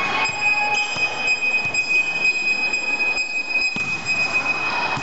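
Several shrill, steady high-pitched tones from spectators' noisemakers, held over the noise of the crowd in the hall and cutting off nearly four seconds in.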